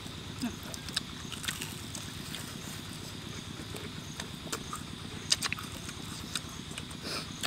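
Eating sounds: people chewing fried pork ribs, with scattered sharp lip smacks and crunches, the loudest about five seconds in, over a steady low background noise.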